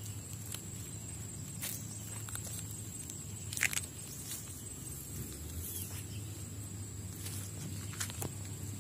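Footsteps on loose river pebbles and gravel, a scatter of short clicks and scrapes with one sharper stone knock about halfway through, over a steady low rumble and a faint steady high whine.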